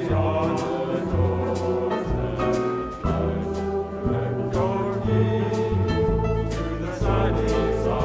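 Mixed choir singing a swing jazz arrangement backed by a jazz quintet, with double bass notes underneath and steady cymbal strokes from the drum kit.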